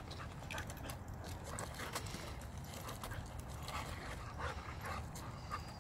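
Two dogs, a Siberian husky and a long-haired black dog, play-wrestling: their paws scuffle and crunch irregularly through loose wood chips.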